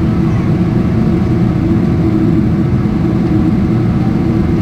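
Inside the cabin of a Boeing 777-300ER climbing out after takeoff: its GE90-115B engines at climb thrust and the airflow make a loud, steady low rumble.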